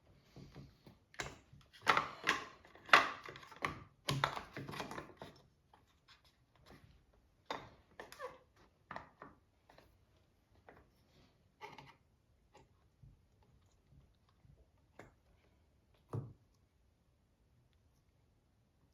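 Clicks and knocks of chainsaw parts being handled and fitted by hand, busy for the first several seconds and then coming only now and then.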